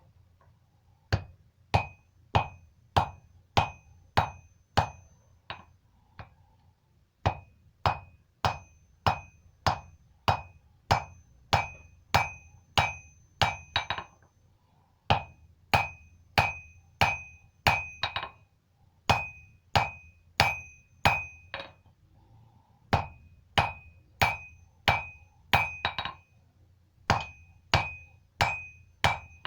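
Hand hammer blows on steel on an anvil, struck at a steady pace of about two a second in runs of several strikes with short pauses between. Each blow leaves a high metallic ring.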